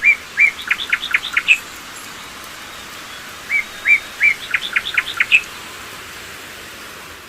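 A songbird singing the same phrase twice, about three and a half seconds apart: a few rising whistled notes, then a quick run of short chips climbing in pitch, over a steady hiss.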